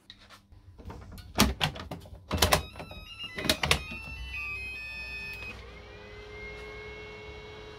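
Hard plastic clacks as Makita 18V batteries are pushed onto several Makita chargers, in three quick clusters. Short electronic beeps follow. Then a steady hum sets in as the chargers' cooling fans spin up and level off.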